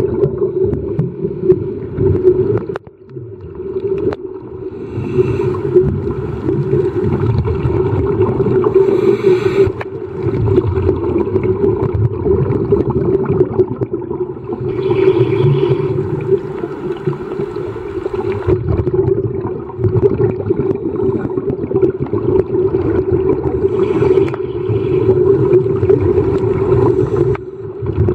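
Underwater sound of a scuba dive: a steady low hum with bubbling from a diver's regulator exhaling every several seconds.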